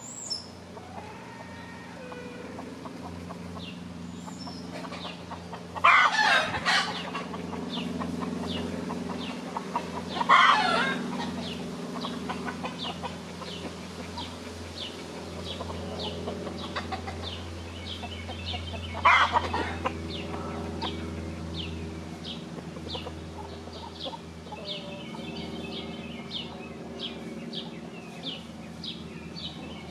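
A flock of free-range chickens, a rooster and hens, clucking, with three loud calls about six, ten and nineteen seconds in. From about halfway through, a regular run of short high chirps, about two a second, goes on behind them.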